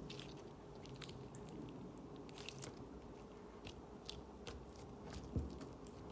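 Thick slime being stretched and worked by hand, giving faint scattered clicks and crackles.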